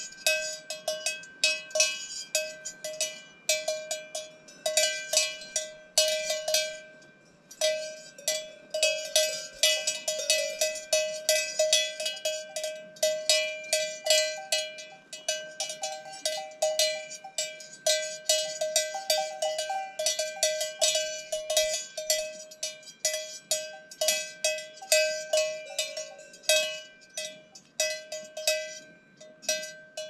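Cowbells on grazing cattle clanking in an irregular, almost unbroken jangle of metallic strikes.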